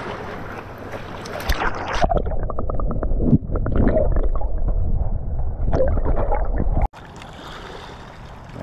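Water heard with the microphone underwater in the shallows: muffled sloshing and gurgling with dull knocks, starting about two seconds in and cutting off suddenly near the end. Before and after it, small waves lapping at a rocky shore with wind on the microphone.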